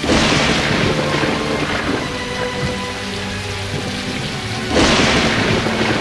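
Heavy rain pouring steadily, with two thunderclaps: one right at the start that fades over a second or so, and another about five seconds in.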